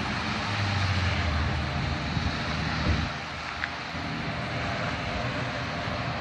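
Traffic on a busy city street: a passing vehicle's low engine hum that drops away about three seconds in, over a steady hiss of road noise.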